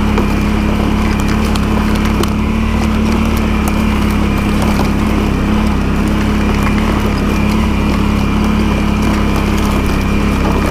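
ATV engine running at a steady, unchanging speed, an even hum throughout.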